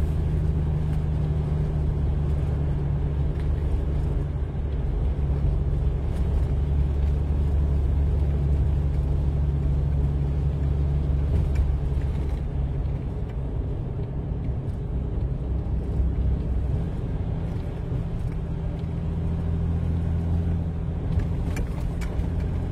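Truck driving at a steady highway speed: a low, steady engine drone over road and tyre noise.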